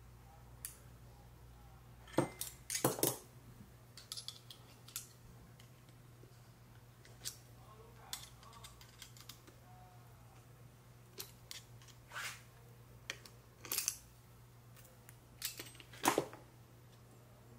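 Irregular sharp metallic clicks and clinks of hand tools and engine parts being handled, the loudest in a quick cluster about two to three seconds in and a single sharp one near the end, over a faint steady low hum.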